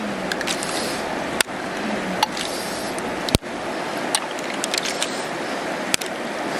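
Steady rush of flowing river water, with a few sharp clicks scattered through it.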